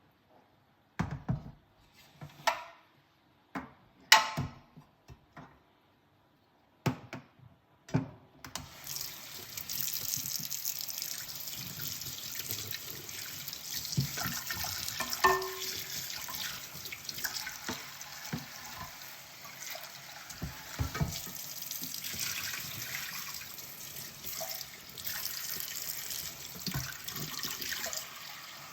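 Crockery and utensils knocking and clinking in a kitchen sink, a few sharp knocks with quiet between them. About eight seconds in the tap is turned on and water runs steadily into the sink, with occasional clinks of dishes being washed under it, one of them ringing briefly.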